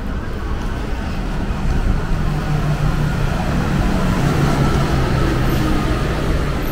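City street traffic with a motor vehicle's engine running close by; its steady hum grows stronger about two seconds in and holds level.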